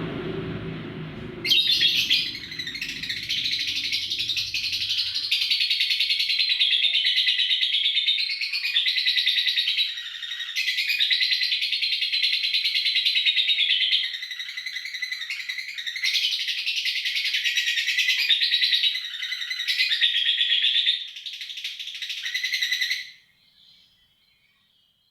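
Lovebird ngekek: a long, rapid, continuous high-pitched chattering trill with a few brief dips, starting about a second and a half in and stopping a couple of seconds before the end. A low rumbling noise comes just before it starts.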